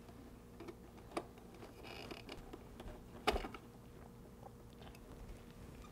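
Faint plastic clicks and handling rustle as a small wire-harness connector is unplugged from a refrigerator ice-maker emitter circuit board, with one sharper click about three seconds in, over a faint steady hum.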